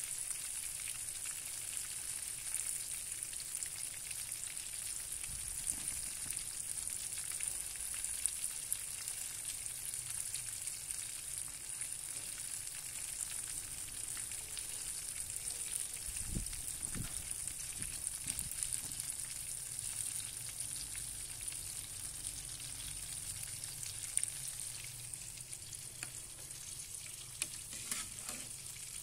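A chunk of fish frying in hot oil in a nonstick frying pan, with a steady, even sizzle. A few light clicks come near the end.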